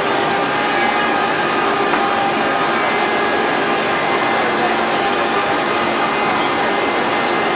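HG-1530 linear ATC CNC router's spindle running steadily as it cuts grooves into a wooden door panel: a constant machine whine with several steady tones over a hissing routing noise.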